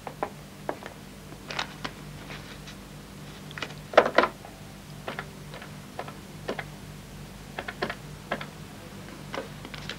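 Scattered small clicks, knocks and paper rustles from handling papers and a card on an office desk, the loudest a cluster about four seconds in, then a run of small clicks as a desk telephone's handset is lifted and its keys worked, over a faint steady hum.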